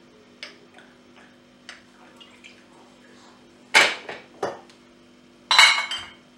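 Kitchenware clinking and knocking as a glass baking dish of oiled octopus pieces is handled. A few faint taps come first, then sharp knocks about four seconds in and a louder clatter of several clinks near the end.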